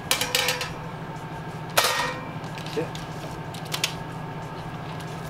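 Metal baking sheet clattering as it is set down on a wire rack, with a loud clank about two seconds in and a few small taps and clicks afterwards, over a steady low hum.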